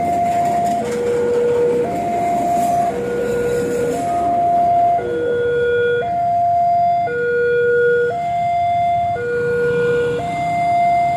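Railway level-crossing warning alarm sounding its two-tone signal, a higher tone and a lower tone alternating about once a second. Under it, the rumble of a passenger train passing the crossing fades away over the first half.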